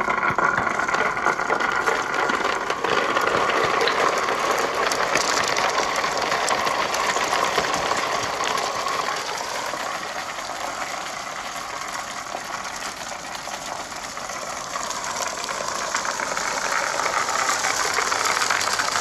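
Balls rolling along a marble-run track: a steady, dense rolling rattle with a ringing hum to it. It starts suddenly, eases a little in the middle and rises again near the end.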